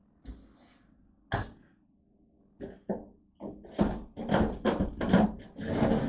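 Knocks and clunks of an air fryer toaster oven being handled at its door: a few separate knocks, then a quick run of clatter in the second half.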